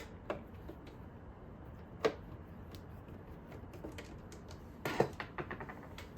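Sharp clicks and taps of small hard parts, screws and plastic pieces, being handled and set down. There is one loud click about two seconds in and a quick run of clicks around five seconds in.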